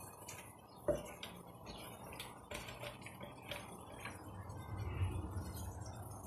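Scattered light clicks and knocks of kitchen utensils and dishes being handled on a counter, the sharpest about a second in.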